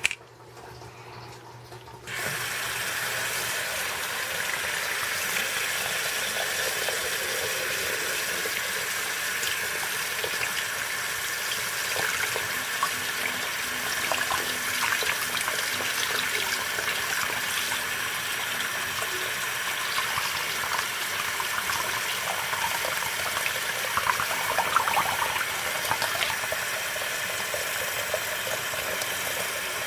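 Water running steadily from a tap, with small splashes; it comes on abruptly about two seconds in.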